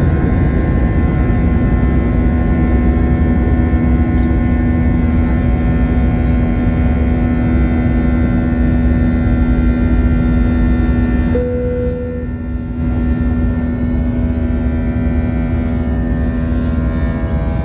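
Airbus A380 cabin noise: a steady drone of jet engines and airflow with a strong low hum. A short single tone sounds about two-thirds of the way through.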